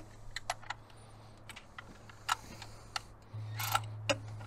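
Irregular metal clicks and clinks of a 5/8 spark plug socket and extension being worked down onto a spark plug in the cylinder head, with a short scraping rustle near the end. A faint low hum runs underneath.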